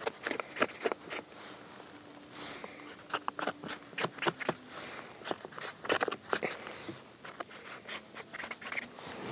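Marker pen scratching and squeaking on a paper target in many short strokes, marking the buckshot pellet holes.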